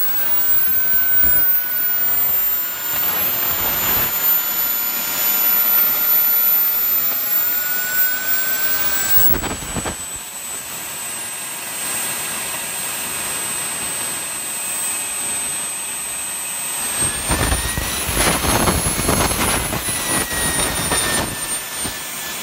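JetCat P20 micro jet turbine running on a test stand: a continuous high whine over rushing exhaust. About three quarters of the way through it spools up, the whine rising in pitch, then winds back down.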